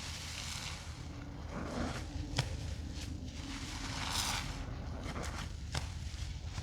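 Soapy wet sponges being squeezed and rinsed: irregular wet squelching hisses, the strongest near the start and about four seconds in, with a couple of sharp clicks.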